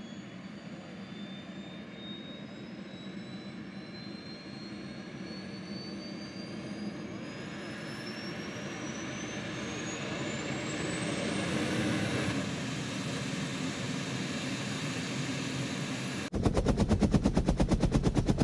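Aircraft engine roar with a whine that rises steadily in pitch as it grows louder, like a plane passing overhead. About sixteen seconds in, a much louder helicopter rotor beat cuts in abruptly, a rapid even chop.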